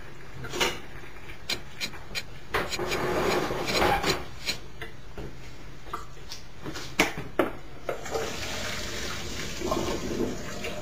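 Cooked sauerkraut being drained through a strainer: scattered knocks and scrapes of a utensil against the pot and strainer, a short stretch of pouring liquid about three seconds in, and a steady rush of liquid from about eight seconds on.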